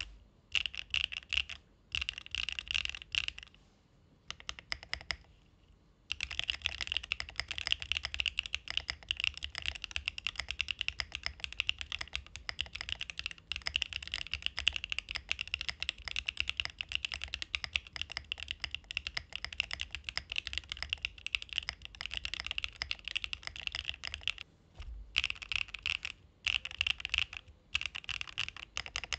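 Fast, continuous typing on a mechanical keyboard fitted with Arco x HMS pre-lubed switches, the clunky sound profile these switches are known for; the typing stops for about two seconds near the start, then runs on with short breaks near the end.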